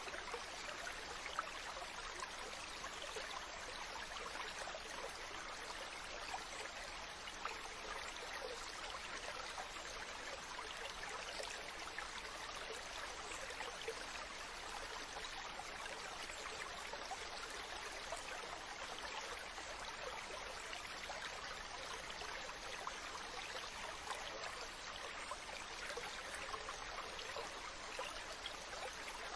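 Ocean water washing steadily, an even hiss of surf and lapping water with no clear rise and fall of individual waves.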